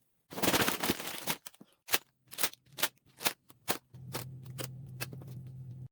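Cardboard LEGO set box being opened by hand: a tearing rip in the first second and a half, followed by a string of short, sharp crackles and clicks.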